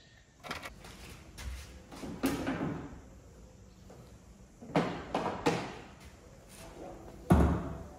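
Knocks and clicks of plastic trim panels being handled and pressed into place around a car's engine bay and front end, a few scattered strokes. A heavy thump about seven seconds in is the loudest sound.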